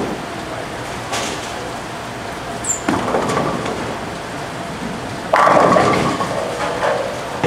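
Ten-pin bowling ball landing on the lane with a thud about three seconds in and rolling, then crashing into the pins a little over two seconds later, the loudest sound, with the pins clattering as it fades. Steady background noise of a busy bowling alley.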